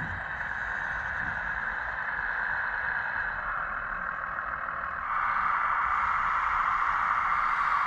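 Electric motors and gearing of radio-controlled construction models whirring steadily, growing louder about five seconds in.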